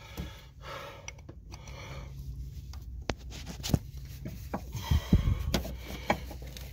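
Steel pry bar working at the old axle seal in the transaxle case: irregular metal clicks, scrapes and knocks, with a few sharper knocks past the middle, over heavy breathing.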